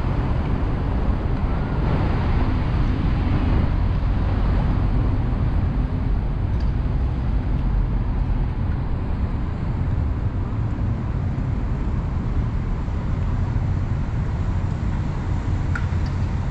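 Steady low rumble of city road traffic, an even wash of noise with no distinct events standing out.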